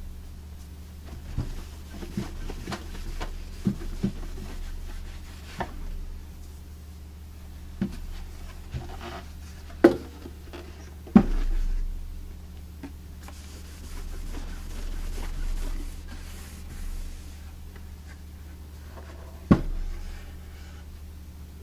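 Cloth rubbing over the waxed wood of a Majestic 5A455 radio cabinet, with scattered knocks and bumps as the wooden cabinet is turned and shifted on the bench. The loudest knocks come about ten, eleven and nineteen seconds in. A steady low hum runs underneath.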